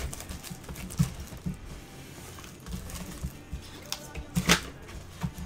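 Gloved hands handling and opening a cardboard baseball-card box: scattered light knocks and scrapes of cardboard, with the loudest scrape about four and a half seconds in.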